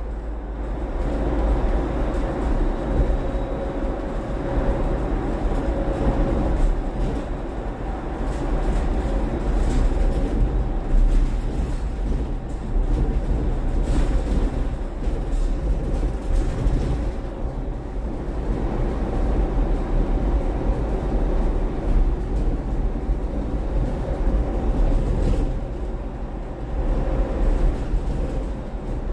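Cabin noise of a battery-electric Volvo BZL double-decker bus on the move, heard from inside the upper deck: a steady low rumble with a faint steady whine and the odd light rattle.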